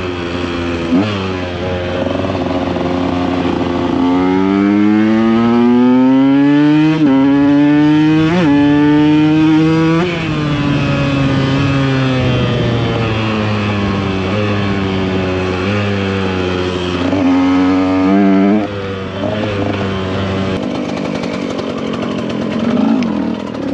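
KTM EXC 125 two-stroke engine pulling up through the gears: its pitch climbs and drops sharply at shifts about seven and eight and a half seconds in, then falls away as the bike slows. There is another short rise later, and quieter running near the end.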